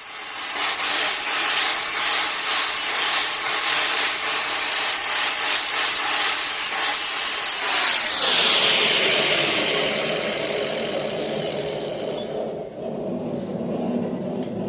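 An electric grinder running and grinding the edge of a small forged steel ring, a loud steady rasp for about eight seconds; then it is switched off and winds down with a falling whine.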